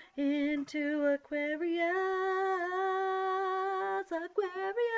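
A woman singing a cappella: three short notes, then a long note held for about two seconds, then a few quick notes and another held note near the end.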